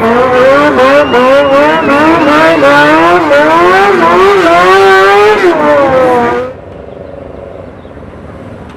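Motorcycle engine revving hard, its pitch rising and falling again and again with the throttle. It is loud and cuts off abruptly about six and a half seconds in, leaving a much quieter background noise.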